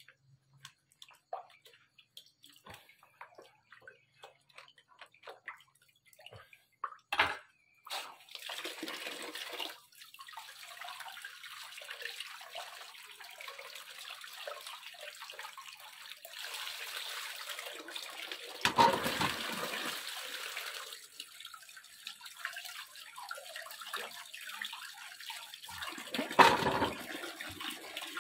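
Hands washing peeled cassava roots in a plastic basin of water: small splashes and knocks at first, then a stream of water pouring steadily into the basin from about 8 seconds in, with loud splashes several times.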